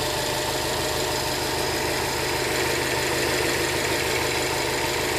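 2013 Subaru WRX STI's turbocharged 2.5-litre flat-four idling steadily with a fast, even ticking. The engine is nearly new, with 1,500 miles, and the owner is unsure whether the tick is normal for it.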